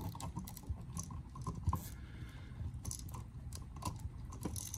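Irregular small clicks and scratches of hands handling a new duplex outlet: wires being pushed into and tugged in its push-in connector holes to check they are locked in.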